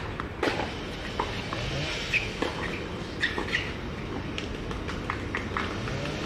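Tennis rally on a hard court: a run of sharp racket hits and ball bounces at an uneven pace, with short high chirps in between over a steady outdoor hum.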